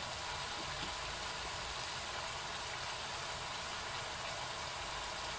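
Chicken in soy sauce sizzling and simmering in a wok over the heat, a steady even hiss.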